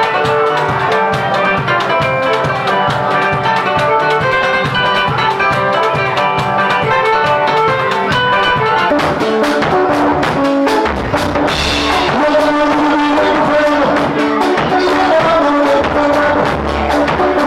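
Music: a steady drumbeat under melodic pitched instruments, changing character about nine seconds in.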